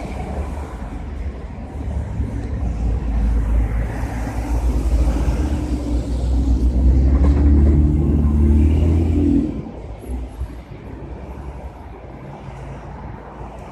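Motor vehicle rumble with engine drone, building up and then falling away sharply about nine and a half seconds in, leaving a quieter low hum.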